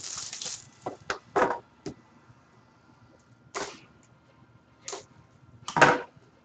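A cardboard Panini Prime trading-card box being unwrapped and opened by hand. A crinkly rustle of its plastic wrap comes first, then a string of short cardboard scrapes and knocks, the loudest near the end.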